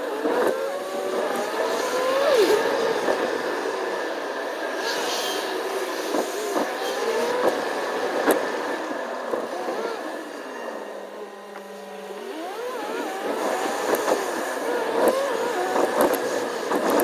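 Road and engine noise inside a moving car, with many short wavering tones rising and falling over it.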